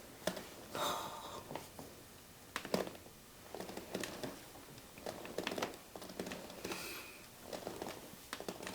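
Soft rustling and scattered small clicks and crinkles of hands working on the body during a deep tissue massage, fabric and the treatment table shifting under the pressure.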